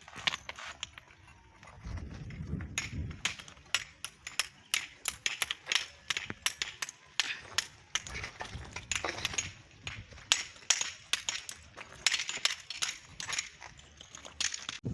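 Many sharp, irregular clicks and clinks of hard objects knocking together, a few each second, with a low rumble around two seconds in and again near eight seconds.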